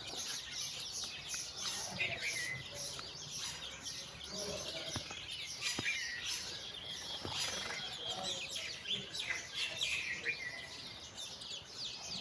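A brood of domestic chicks peeping: many short, high, falling chirps overlapping without pause, with a few lower clucking calls from the mother hen now and then.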